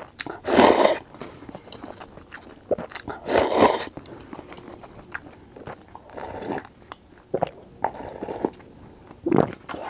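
A person eating spicy instant noodles close to the microphone: two loud slurps of noodles, about half a second and three and a half seconds in, with chewing between them, and a few shorter sips of broth from the cup near the end.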